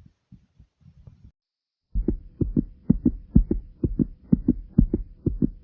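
A person's heartbeat: faint low thumps, then after a short gap about two seconds in, a much louder, fast, regular run of beats.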